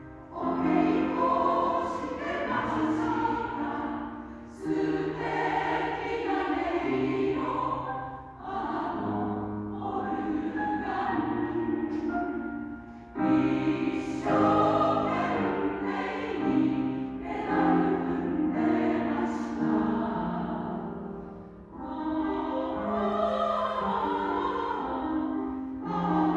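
Two choirs singing a Japanese song together with accompaniment. The song moves in held phrases, with short breaks between them every few seconds.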